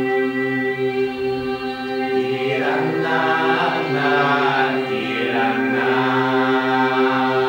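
Choir singing a steady held drone with overtone singing: from about two seconds in, the singers shift their vowels so that high overtones sweep up and down above the unchanging drone pitch.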